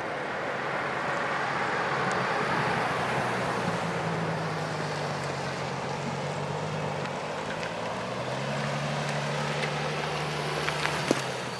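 A car driving at speed: a steady engine drone under tyre and road noise, its pitch dipping slightly and then rising again. A single sharp click near the end.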